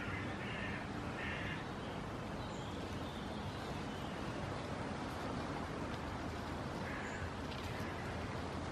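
Bird calls, a few short caws near the start and another about seven seconds in, over a steady background noise.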